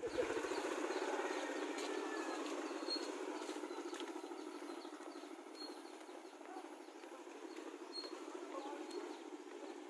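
Outdoor ambience: a dense low murmur, loudest at the start and fading over the first half, with a few short, high bird chirps scattered through.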